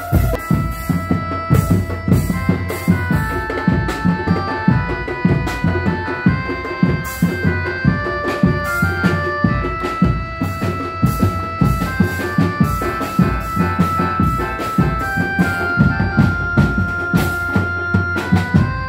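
Live accompaniment for a tiger-costume dance: fast, driving drumming with a melody of held notes stepping up and down above it.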